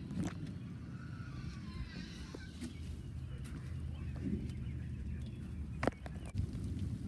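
Low wind and handling rumble on a phone microphone, with faint bird chirps in the first few seconds and a sharp knock about six seconds in as a door is worked.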